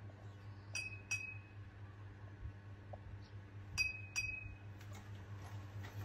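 Two glass beer bottles clinked together, two quick clinks about a second in and two more about three seconds later, each ringing briefly.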